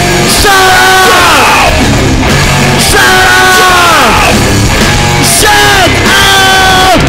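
Loud rock music with a yelled lead vocal: a series of held notes, each sliding down in pitch at its end.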